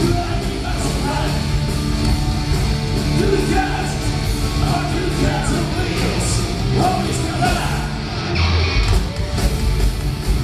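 Heavy metal band playing live: distorted electric guitars, bass guitar and drums under a male singer's vocal, heard from the audience. About eight seconds in the sound shifts briefly, and the low end comes back heavier after it.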